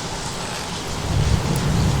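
Steady rain with a low rumble of thunder that swells about a second in.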